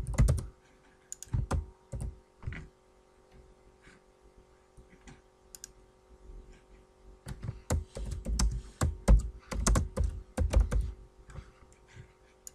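Typing on a computer keyboard: a few separate clicks in the first couple of seconds, then a quick run of keystrokes from about seven to eleven seconds in.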